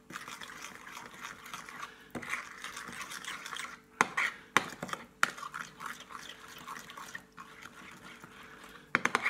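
Metal spoon stirring a thick, porridge-like paste in a bowl, scraping against the bowl with a few sharper clinks along the way.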